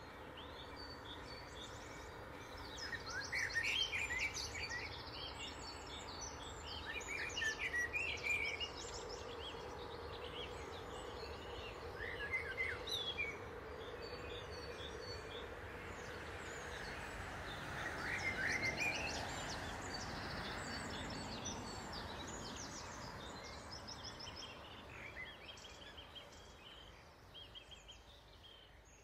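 Small birds chirping and trilling in short repeated phrases over a steady low rush from a distant train passing along the far bank.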